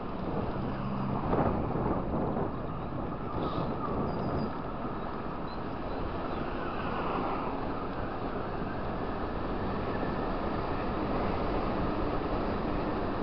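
Wind buffeting the microphone of a moving motor scooter, with the scooter's engine running steadily underneath. A short, slightly louder gust comes about a second and a half in.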